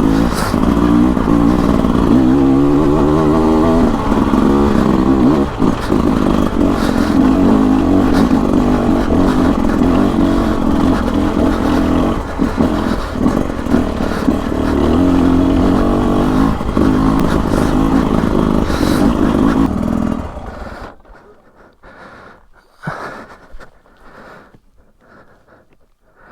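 Beta RR 300 single-cylinder two-stroke enduro engine running while ridden, its revs rising and falling with the throttle. About twenty seconds in, the engine sound stops abruptly, leaving a few faint knocks.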